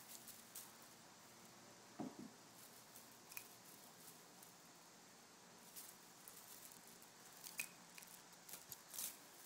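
Near silence with scattered faint clicks and rustles from a Himalayan kitten moving on velvet among makeup items, with a soft thump about two seconds in and a cluster of clicks near the end.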